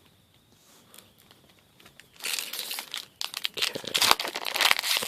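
Foil wrapper of a Magic: The Gathering booster pack crinkling and tearing as it is opened, starting about two seconds in after a quiet moment.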